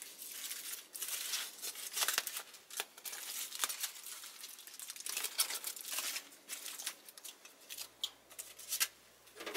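Aluminium foil crinkling and rustling as it is unwrapped from a steak by hand, in irregular crackly bursts that thin out near the end.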